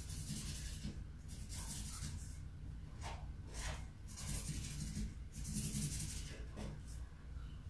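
Felt-tip marker scratching across paper in a series of short strokes, each lasting a second or less, as curtains are drawn onto a window.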